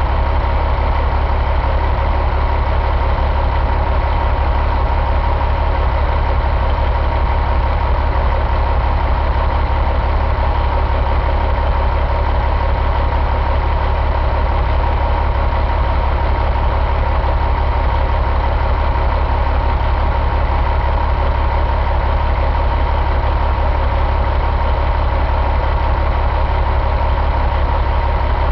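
2002 Caterpillar C15 inline-six diesel engine idling steadily, a low drone with a thin steady tone above it.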